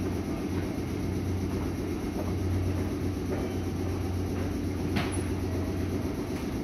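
A Meitetsu 6500 series electric train standing at the platform, humming steadily, with one sharp click about five seconds in.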